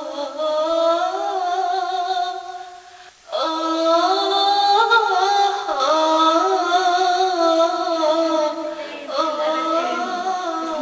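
A woman singing a slow Arabic hymn, holding long notes that glide between pitches. The singing breaks off briefly about three seconds in.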